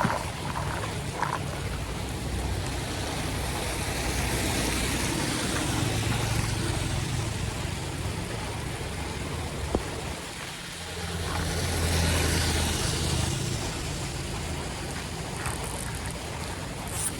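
Floodwater rushing on a flooded street, with the low rumble of motor vehicles passing through the water, swelling twice and easing off.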